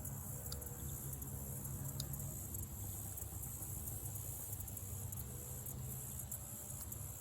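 Steady high insect buzzing with a low wind rumble on the microphone, and a few faint clicks.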